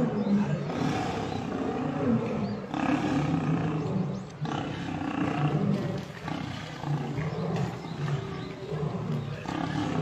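Lions growling in a low, continuous run of short, rising-and-falling pulses during a fight in which lionesses pin down a male lion.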